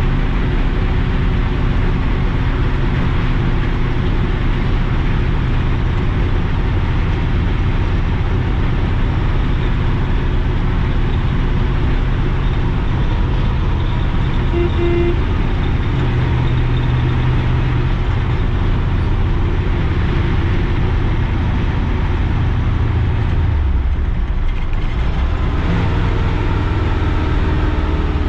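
Chevy K30's 6.0 Vortec V8 running steadily under load while towing a heavy trailer, with tyre and road noise. The engine note changes briefly near the end, then steadies again.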